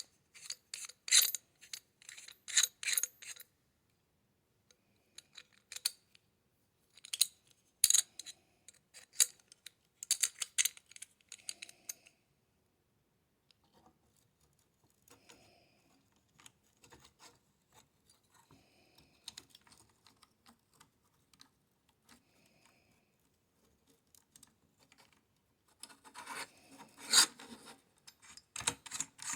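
Metal AR-15 buffer tube and lower receiver parts being handled and fitted: clusters of small clicks and scraping, faint in the middle and busier again near the end.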